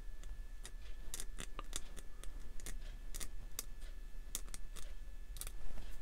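Hobby knife blade scraping a small plastic model part, a run of short, sharp scrapes and clicks at roughly two to three a second.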